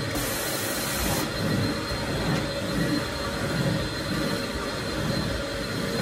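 Carpet extraction machine running, with a steady suction roar and a faint motor whine as the cleaning wand is drawn across the carpet. A brighter hiss sits over it for about the first second, then cuts off.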